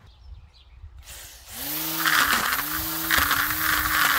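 Homemade cable-tie weed whacker's brushed electric motor switching on about a second and a half in and quickly spinning up to a steady whir, with a hissing whip of the cable ties. The pitch dips for a moment a few times as the spinning ties strike grass and the rock and load the motor.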